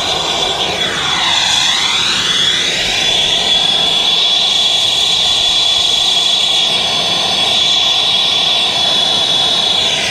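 Brazing torch flame hissing steadily with a high whistle while copper refrigerant line-set joints are brazed; its tone sweeps about a second in and again near the end.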